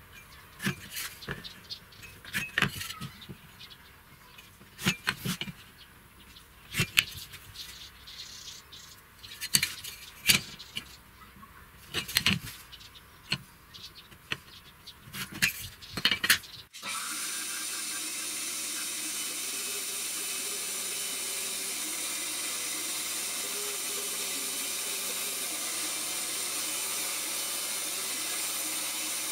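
Steel ruler and square being set down and shifted on a wooden board, with scattered sharp clicks and knocks while lines are pencilled in. About two-thirds of the way in the sound cuts abruptly to a bench band saw running, a steady even whirr that holds to the end.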